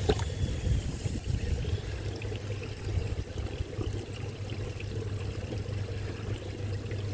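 Water sloshing and trickling in a plastic tub as a hand moves through it and scoops up a fish, over a steady low hum.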